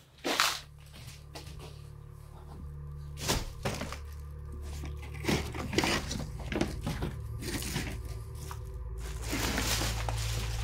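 Background music with a steady low bass drone that swells near the end, with a few sharp knocks and thumps over it.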